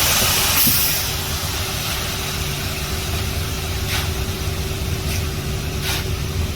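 An engine running steadily with a low hum. A loud rushing hiss stops about a second in, and a few short knocks or scrapes come near the end.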